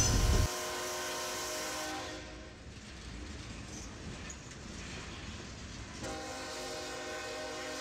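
Diesel freight locomotive's air horn sounding a steady chord that starts abruptly about six seconds in, over the low rumble of the passing BNSF train. A similar horn tone dies away in the first two seconds.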